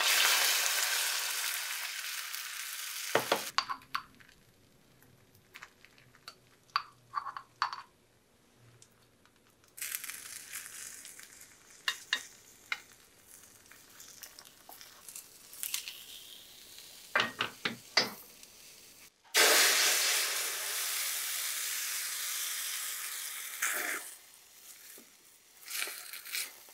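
Beaten egg sizzling as it is poured into a hot oiled rectangular tamagoyaki pan for a rolled omelette. A loud sizzle at the start fades over about three seconds. Light clicks and taps of chopsticks against the pan follow as the layer is rolled. More sizzling comes as further egg goes in, loudest again about two-thirds of the way through.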